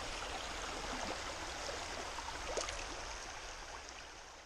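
Shallow stream water running over rocks, a steady rushing babble that fades down toward the end.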